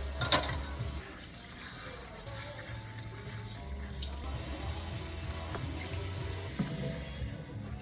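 Water running from a tap into a sink, with soft background music under it and one sharp knock about a third of a second in.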